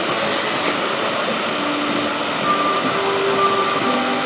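A large musical fountain's many water jets spraying and falling back into the basin: a loud, steady rush of water.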